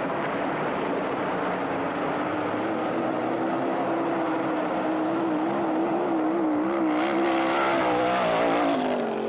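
Racing hydroplane's engine running flat out, a steady, slightly wavering drone that grows louder as the boat closes in and drops in pitch as it passes near the end.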